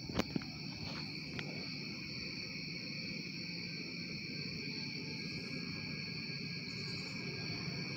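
Steady chorus of night insects, a constant high-pitched trill at two pitches, over a low steady rumble. Two short clicks come in the first half-second.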